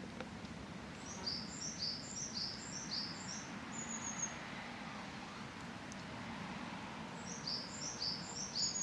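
A small songbird singing two phrases of quick, high, repeated down-slurred notes, each phrase ending in a rapid trill. Under it runs a steady low background hum.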